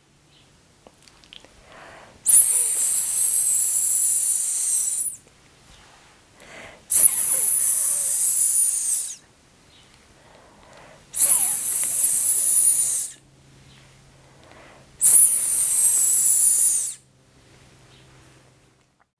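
A person hissing the Spanish 's' sound, "ssss", four times, each held for about two seconds with short pauses between.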